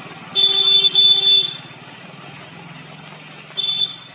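A vehicle horn honking twice in quick succession, each blast about half a second of one steady pitch, then once more briefly near the end, over a low steady rumble.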